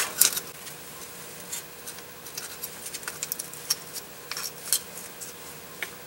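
A thin metal pick scraping and clicking against the dust cover cap on a Mercedes-Benz C-Class automatic transmission's wiring harness connector as the cap is pried off: scattered small sharp clicks and scratches, the loudest just after the start.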